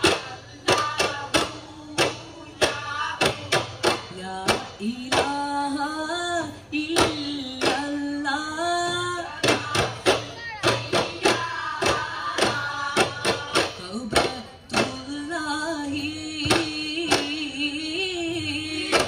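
Duffmuttu: a group beating daf frame drums with sharp strokes several times a second while a voice sings a gliding, held melodic line over them.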